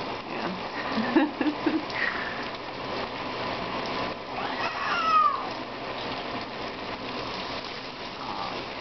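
Shower water spraying steadily onto a 15-year-old domestic cat and the bathtub. The cat gives one meow about halfway through, its pitch sliding. A few short low sounds come about a second in.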